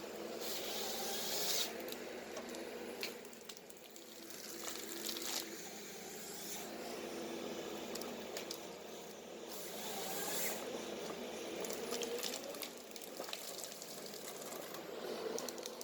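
Ponsse Ergo forest harvester working: steady engine hum and hydraulic whine with pitch slides, broken by several bursts of crackling, rustling noise and sharp cracks, about a second in, near seven seconds and near ten seconds, as the head cuts and strips trees.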